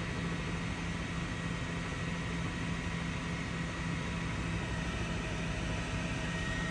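Steady cabin noise of a helicopter heard from on board, an even rushing sound with a constant low hum and a thin high whine.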